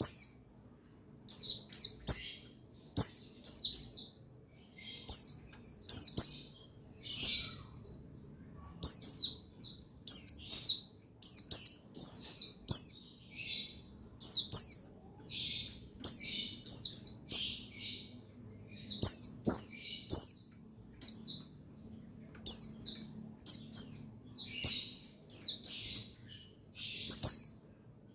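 Buxtoni white-eye (pleci) calling: bright, high chirps, each falling quickly in pitch, strung in short clusters roughly every second with brief pauses between.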